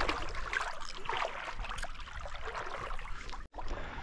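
Legs wading through shallow seawater, an uneven sloshing and swishing of water with no steady rhythm.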